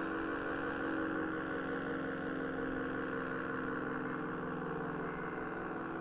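ACA P-50 mechanical warning siren winding down after its alert: a low, steady tone with stacked overtones, slowly sinking in pitch and level. Small birds chirp faintly over it.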